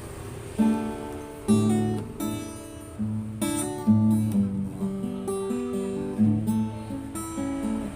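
Acoustic guitar strumming a series of chords, each one struck sharply and left to ring; an instrumental passage between sung lines of a slow song.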